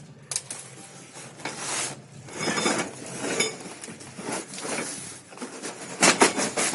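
A cardboard carton being handled and pulled up off a packed dish antenna: irregular scraping and rustling of cardboard with a few knocks, and a louder burst of scraping and knocking about six seconds in.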